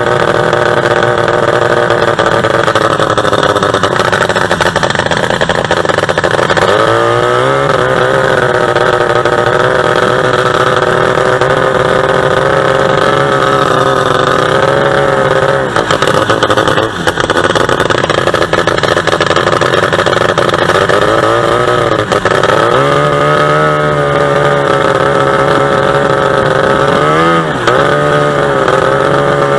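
A 45 hp two-stroke boat engine running hard at high revs, its pitch swinging down and back up several times, with a brief dip about halfway through.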